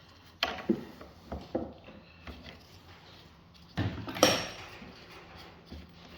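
A few light metallic clinks and knocks, the loudest pair about four seconds in, as a steel washer is fitted onto a lawn mower wheel's axle.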